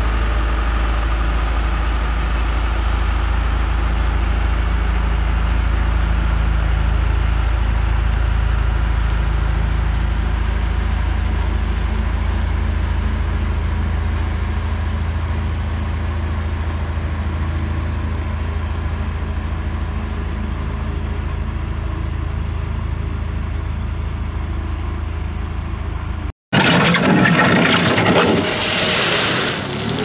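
Yanmar mini excavator's diesel engine running steadily as it works a gravel pile. About 26 seconds in the sound cuts off abruptly and gives way to a louder engine with gravel noise from a small wheel loader pushing crushed stone.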